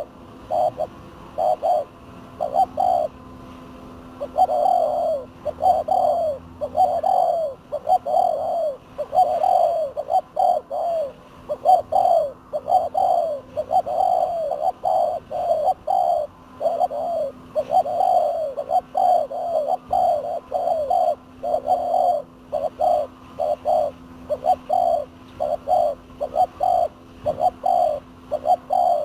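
Spotted doves cooing: an almost unbroken run of short, low coos, several a second, in uneven groups. A faint steady hum lies beneath.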